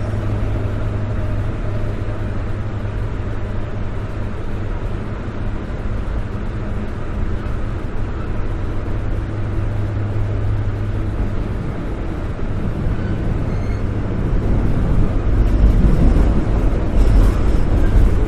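Subway train running, a steady low rumble with wheel and track noise that swells louder near the end.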